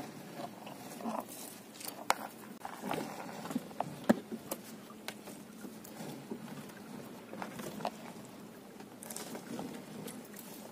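A floating gillnet being hauled by hand over the side of a small boat: the net mesh rustles, with irregular sharp knocks and clicks against the hull. The loudest knocks come about two and four seconds in.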